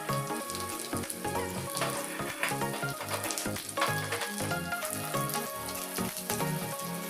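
Food frying in hot oil in a pan: a steady sizzle with scattered crackles, under background music.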